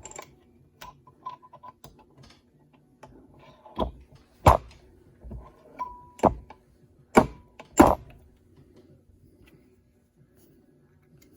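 Clicks and clunks of an RCBS primer pocket swager combo working the military primer crimp out of .223 brass cases, with about five loud knocks between four and eight seconds in and a couple of brief metallic rings.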